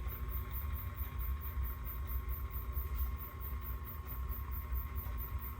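Steady low background hum with a thin, steady high tone above it and no distinct events: electrical or equipment hum at a test bench.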